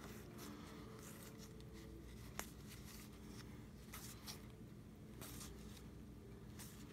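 Faint rustling and sliding of board-game cards being leafed through in the hand, with a few soft scrapes and a small tick about two and a half seconds in, over a low steady hum.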